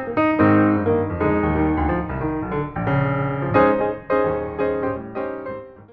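Background piano music, notes struck in a quick rhythm, fading out near the end.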